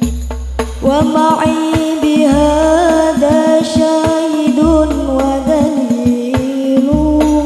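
A young woman singing an Arabic sholawat (Islamic devotional song) solo into a microphone through a sound system, with sliding ornaments on the held notes and a beat of low drum thuds and percussion strikes underneath.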